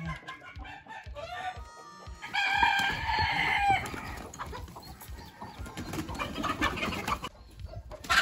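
Chickens clucking and squawking, with a rooster crowing once, a long call about two seconds in that is the loudest sound.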